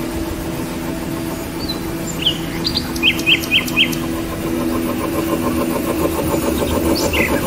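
Small electric grinding mill running with a steady hum as it grinds burnt cow-dung lumps into fine ash powder. Small birds give a few short chirps in the middle and again near the end.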